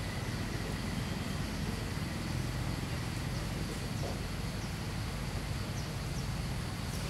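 Steady outdoor background noise with a low rumble and a few faint, short high chirps scattered through it.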